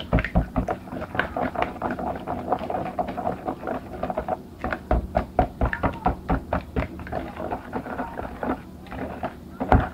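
Eggs, sugar and oil being beaten by hand in a bowl, the utensil clicking and knocking rapidly and unevenly against the bowl's sides.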